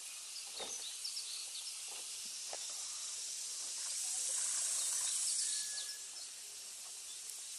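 Outdoor river ambience: a steady high hiss that swells for a couple of seconds in the middle, with short high bird chirps and a few faint knocks.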